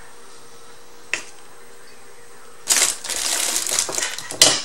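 A single light tap about a second in, then nearly two seconds of dense rustling and small clattering ending in a sharp knock, as fresh chilies are tipped from a small ceramic cup into a granite mortar and the cup is set back down on the wooden counter.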